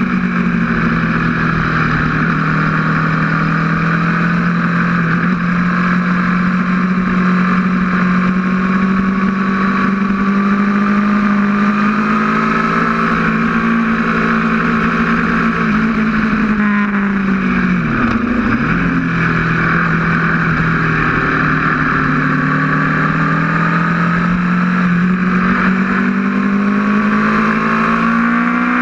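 Aprilia RSV4's V4 engine running hard under a lapping rider, its pitch rising and falling slowly through the corners and straights. About eighteen seconds in the revs drop sharply and climb straight back.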